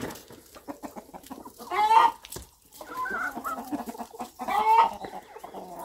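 Chickens clucking, with two louder, longer calls, one about two seconds in and one near the end.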